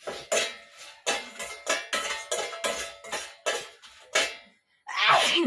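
Metal spatula knocking and scraping against a metal frying pan, about three strokes a second with the pan ringing briefly after each, while stirring dried red chillies; a longer, louder scrape near the end.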